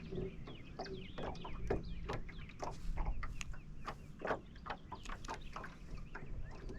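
Birds chirping over and over in short, irregular calls, over a steady low hum.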